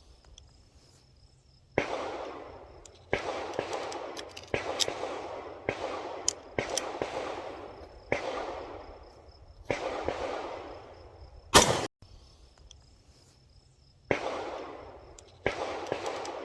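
Prototype semi-automatic pistol firing about ten shots one after another, one to two seconds apart, each crack trailing off in an echo. The shots come in succession from the magazine, a sign that the gun is now repeating.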